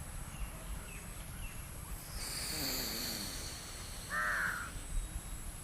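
A slow, hissing breath drawn through the nose about two seconds in, a breath of Surya Bhedana pranayama (in through the right nostril, out through the left). A bird gives a single short call about four seconds in.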